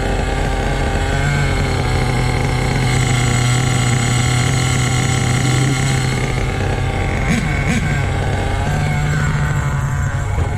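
Small nitro engine of an HPI Savage RC truck idling steadily at a low speed. It is running low at idle, which the owner puts down to it not getting enough fuel in the cold.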